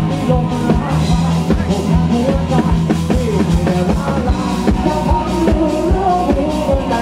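Live rock band playing loud through a stage PA: a male voice singing over electric guitars, bass and a drum kit keeping a steady beat.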